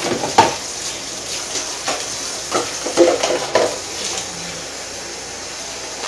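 Brown gravy thickening and sizzling in a nonstick frying pan, a steady hiss with several short pops in the first few seconds.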